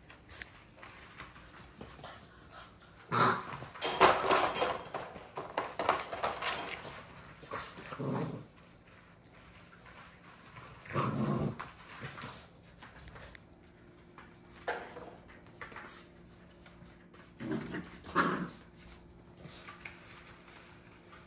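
American bully puppies play-fighting, growling and whimpering in short bursts with quiet gaps between.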